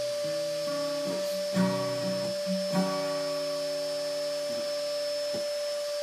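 Acoustic guitar playing its last few picked notes and chords, loudest about one and a half seconds in, then letting them ring, with one last short stroke about five seconds in. A steady, high-pitched vacuum cleaner drone runs under the guitar throughout.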